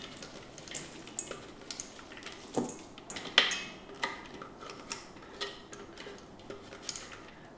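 Silicone spatula scraping nut paste out of a Kenwood food processor's plastic bowl into a stainless steel mixing bowl: scattered light clicks and taps, sharpest about two and a half and three and a half seconds in.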